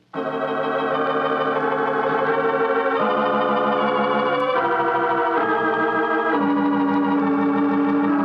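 Organ music bridge between scenes of a 1940s radio drama: a slow series of held chords starting abruptly, the last chord held long from about two-thirds of the way through.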